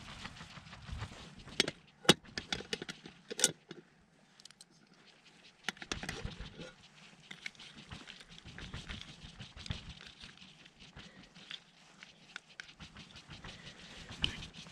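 Metal clinks, knocks and scraping as a Trangia-type camping-stove pan and its lid are handled over the food, with soft rustling. The sharpest clinks come about two and three and a half seconds in.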